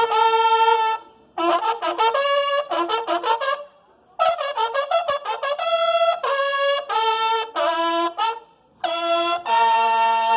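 Three marching-band bugles (cornetas) playing together in harmony: quick tongued phrases broken by short pauses, ending on a long held chord.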